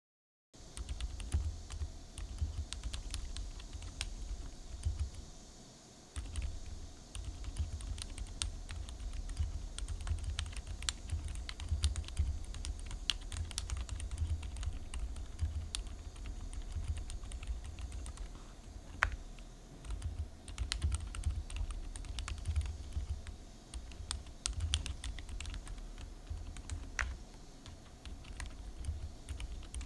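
Typing on a mechanical keyboard fitted with Outemu Silent White switches: a fast, continuous run of keystrokes, with a short pause about five seconds in.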